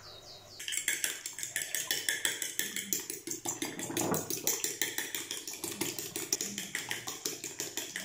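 A fork beating a raw egg in a plate, its tines clicking quickly and steadily against the plate. The beating starts about half a second in.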